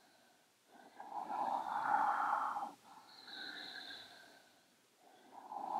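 A woman breathing deeply and audibly through her nose in time with a cat-cow yoga movement. There is a longer, louder breath about a second in, a shorter, fainter one around the middle, and another starting near the end.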